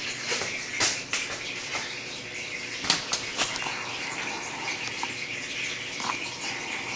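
Flood coolant splashing and trickling into a plastic bucket on a CNC mill table: a steady watery hiss with scattered sharp knocks, the strongest just under a second in and around three seconds in.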